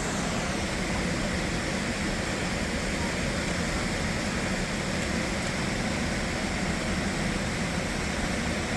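Waterfall rushing, a steady even wash of falling water.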